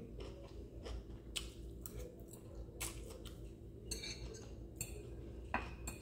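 Metal fork and spoon clinking and scraping against a ceramic plate while twirling spaghetti: scattered light clinks, about eight in all, irregularly spaced.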